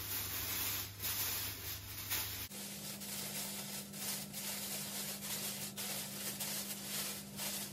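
Thin plastic roasting sleeve rustling and crinkling in the hands as a stuffed raw duck is slid into it, with many small crackles.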